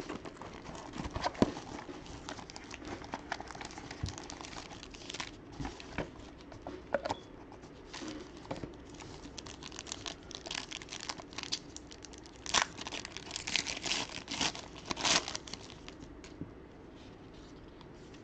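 Plastic wrapping and card packs being crinkled and torn open by hand as a sealed box of trading cards is opened. Irregular crackles, bunching up and louder in the second half, then thinning out near the end.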